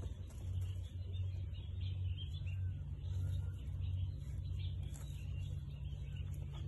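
Wind buffeting a phone's microphone on an exposed cliff face: a steady low rumble, with faint scattered high chirps above it.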